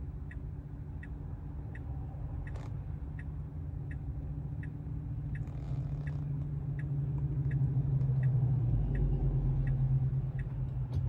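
Tesla Model 3's turn-signal indicator ticking steadily, a little under two ticks a second, over a low in-cabin hum that swells in the second half.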